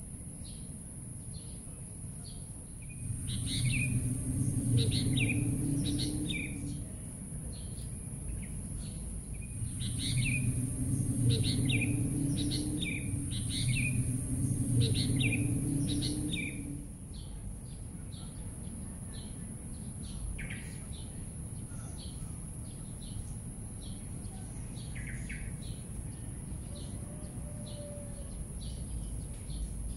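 Small birds chirping in quick, repeated short calls over a steady high-pitched tone. A low rumble swells up twice, in the first half, and is the loudest sound.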